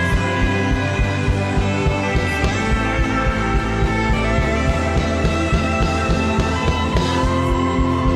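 Instrumental worship music with no singing: sustained chords held over a steady low pulse.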